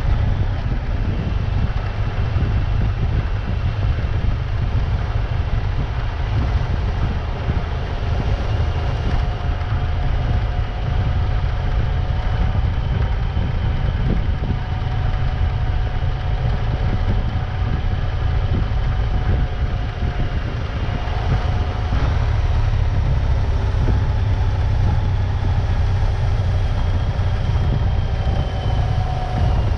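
A vehicle's engine running steadily under way, with a deep, constant rumble and a faint, slowly wavering engine tone throughout.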